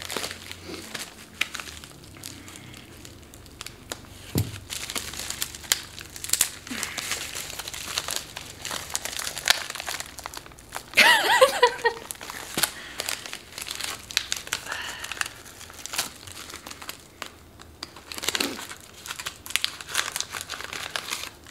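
Plastic bubble mailer crinkling and rustling as it is handled and pulled at to open it, in many small irregular crackles. About halfway through there is one short, louder, pitched sound.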